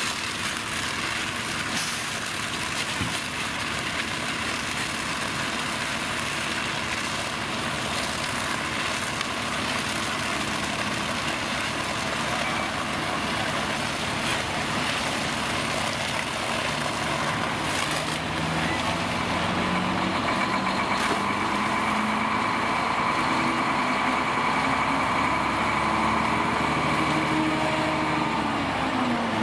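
Fire engine running at the pump under a steady rushing noise while it feeds a monitor water stream. About two-thirds of the way in, the engine speeds up, its pitch climbing slowly, and it drops off again near the end.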